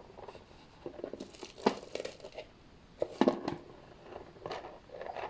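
Handling noise: rustling and crinkling, with a few sharp light knocks, the loudest two about a second and a half apart.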